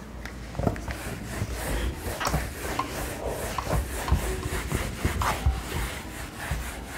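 Eraser wiping a whiteboard clean: a run of uneven rubbing strokes across the board.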